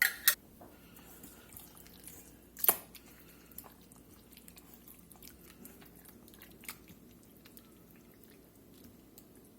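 Quiet wet kitchen handling of chicken in a buttermilk marinade: a couple of sharp clicks at the start and a louder one about three seconds in, then faint squishing and small ticks.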